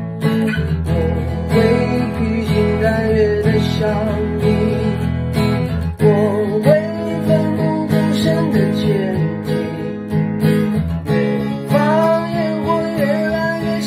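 Acoustic guitar strummed in steady chords while a man sings a Mandarin ballad over it, the chords changing twice.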